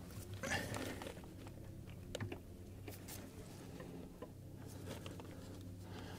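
Faint scattered clicks and rustles of hands handling a metal brake line and its fitting at the ABS pump, over a low steady hum.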